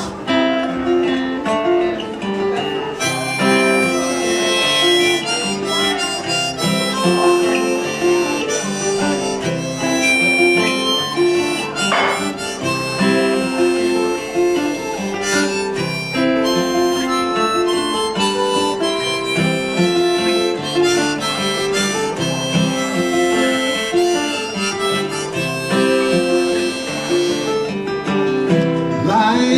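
Harmonica solo played from a neck rack over acoustic guitar accompaniment; the harmonica comes in about three seconds in, with sustained, bending notes over the guitar's steady chords.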